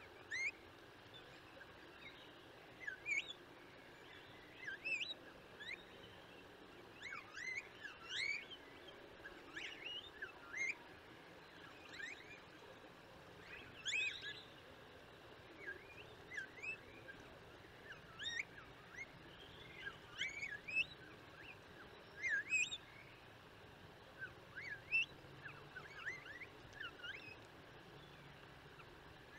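Tristram's starlings calling: short whistled chirps, many rising quickly in pitch, in loose clusters every second or two over a faint steady background hiss.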